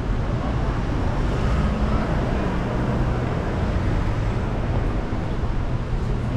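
Steady city street traffic noise: vehicle engines running, with road noise.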